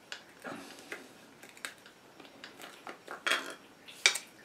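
An angle grinder's cutting disc and clamping flange being handled and taken off the spindle: scattered light clicks and clinks, a short scrape about three seconds in and a sharp metallic click near the end.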